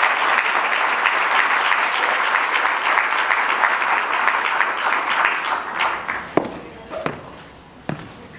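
Audience applauding in a hall, dying away about five seconds in to a few scattered claps and knocks.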